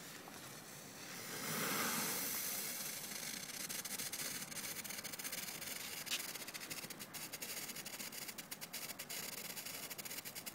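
Small Category 1 ground fountain firework hissing steadily as it sprays sparks, starting up about a second and a half in. From about six seconds in, rapid crackling joins the hiss.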